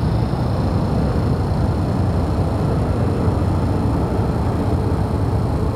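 Wind rumbling on the microphone: a steady, gusty low rumble.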